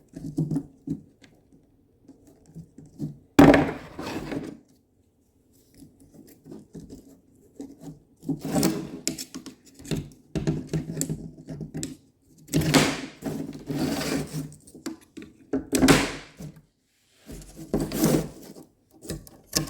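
Irregular rubbing and scraping from work on a window screen and its frame, with one sharp knock about three and a half seconds in.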